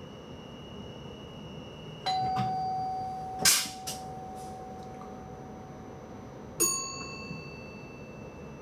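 Electronic chimes in a train driver's cab: a steady high beep stops about two seconds in as a ding sounds and rings on for several seconds, and a second ding comes near the end. About a second after the first ding there is a short, sharp hiss, the loudest sound here, followed by two fainter ones.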